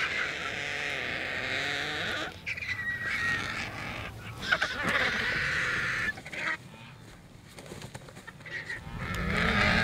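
A crowd of vultures squabbling at a carcass: harsh, hissing calls in several bouts, quieter for a couple of seconds past the middle and louder again near the end.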